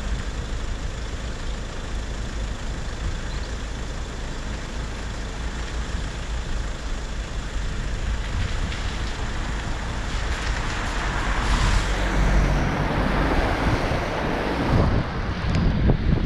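Road traffic on a wet road: a steady rumble with tyre hiss from passing vehicles, swelling as a vehicle passes about twelve seconds in. Near the end, uneven wind buffeting on the microphone.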